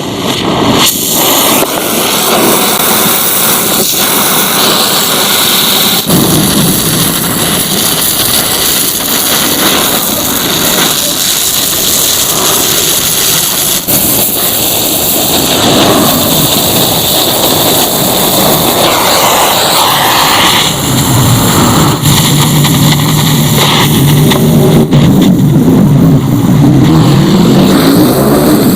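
Angle grinder running against the steel of a two-stroke motorcycle exhaust being rebuilt: a continuous loud whine and grinding.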